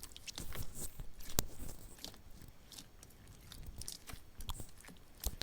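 Slime being pressed and worked by hand, giving irregular crackling and sticky clicking sounds, with one sharper click about a second and a half in.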